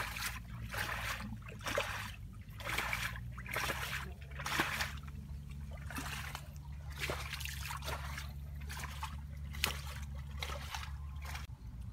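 Shallow muddy water splashing and sloshing in short irregular bursts, over a steady low hum.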